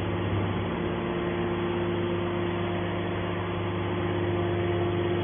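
Steady mechanical drone with a few constant low tones, holding an even pitch and level throughout.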